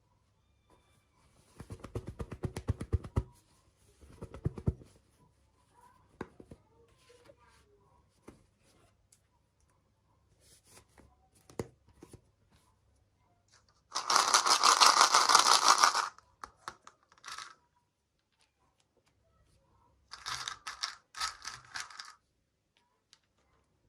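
Toy packaging being torn open and crinkled by hand in several separate bursts. The loudest and longest tear lasts about two seconds, a little past the middle, and there are shorter rustles and rapid clicking handling sounds before and after it.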